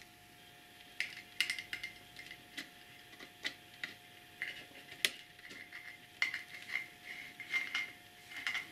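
Irregular plastic clicks and light knocks as a multi-pin wiring-loom plug is worked into its socket on the back of a car stereo head unit, with the loose wires rattling. The sharpest click comes about five seconds in.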